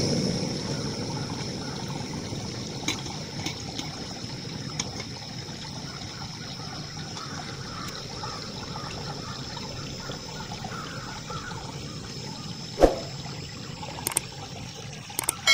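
Portable gas-canister camping stove burning with a steady rushing hiss and a thin high tone, just after being lit, over water trickling from a culvert into a stream. One sharp knock about 13 seconds in, and a ringing metal clang at the very end.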